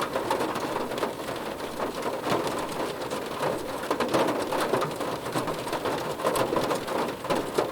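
Rain falling on a car's roof: a dense, steady patter of drops hitting the metal.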